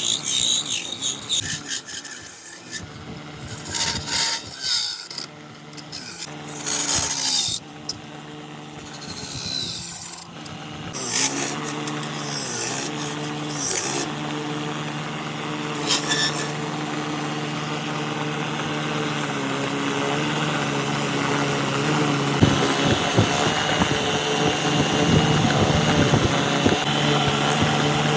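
Woodworking on a wooden mortar: irregular scraping and rasping strokes on wood for about the first ten seconds, then a power tool's motor running with a steady hum, its pitch dipping briefly a few times before settling.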